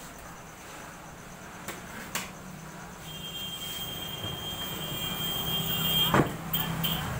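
Hinged plywood panels of a folding table being handled and folded: two light clicks, then a sharp wooden knock about six seconds in. Under them a steady low hum with a high whine comes up about halfway through.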